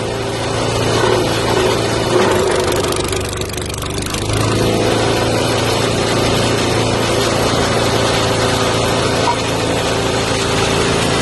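Wood chipper's 196 cc single-cylinder gasoline engine running steadily, with a brief dip in sound about three to four seconds in before it settles back to a steady run.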